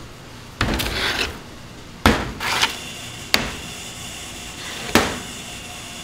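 A short scrape, then four sharp knocks spread over about three seconds, like hard objects being handled and set down on a wooden surface.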